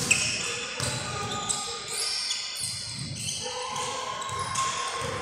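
Indoor basketball gym sounds: a basketball bouncing on the hardwood court now and then, short high squeaks like sneakers on the floor, and voices echoing in the hall.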